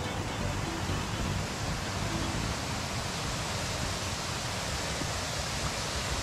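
Waterfall rushing, a steady even hiss of falling water.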